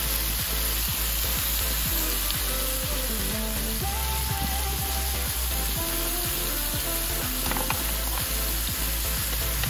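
Mussels, a sausage and pork pieces sizzling on a hot ridged grill pan, a steady frying hiss, with music playing underneath.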